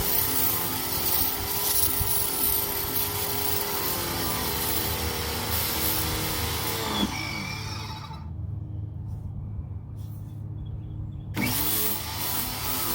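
GreenWorks 1700 psi electric pressure washer running and spraying. About seven seconds in its motor winds down and stops as the trigger is released, then spins back up about four seconds later when the trigger is pulled again.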